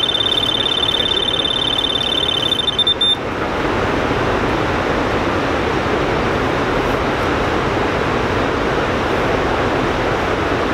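Electronic fishing bite alarm sounding a rapid, unbroken high-pitched beeping for about three seconds, signalling a run: a pike has taken the deadbait and is pulling line. It cuts off suddenly, leaving a steady rushing noise of flowing river water.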